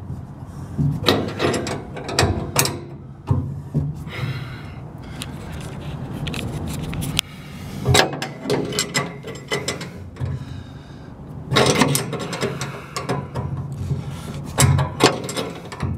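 3/4-inch wrench clicking and clinking on a brass fitting as it is tightened into a cast steel filler neck: clusters of sharp metal clicks with pauses between them, over a low steady hum.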